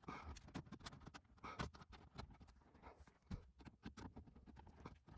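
Faint, scattered clicks and light knocks of interior trim panels and their screws being handled and fitted by hand.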